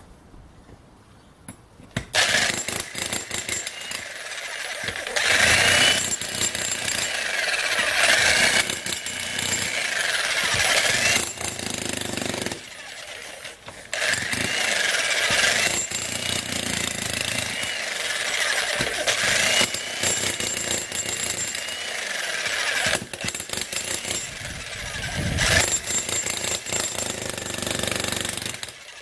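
VEVOR 2200-watt electric demolition jackhammer with a chisel bit, hammering into and breaking up concrete. It starts about two seconds in and runs loud and continuous, with a few brief pauses.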